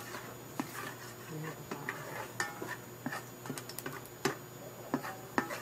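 Scattered light clicks and taps from a black nonstick pot being handled while oil is wiped around its bottom with a paper towel.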